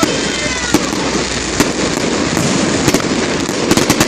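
Aerial fireworks display: sharp bangs roughly once a second over continuous crackling, with a quick run of several cracks near the end and faint whistles at the start.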